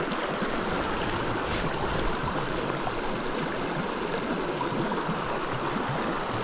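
Small mountain creek flowing: a steady rush of running water.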